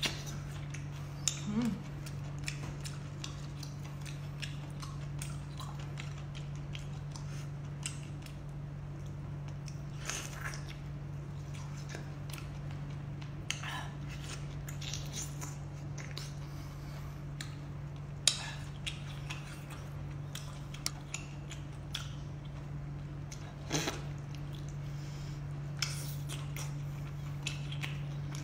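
Close-up eating sounds of a person biting and chewing whole octopus tentacles: scattered wet smacks and clicks, over a steady low hum.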